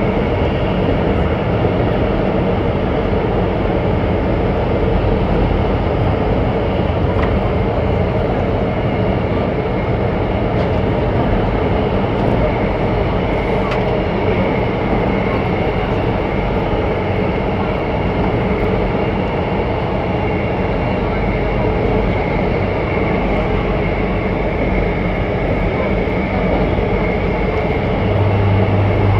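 Cabin noise of an Alstom Metropolis C751C metro train running at speed: a steady rumble of wheels and running gear with a regular buzzing tone. A strong low hum comes in near the end.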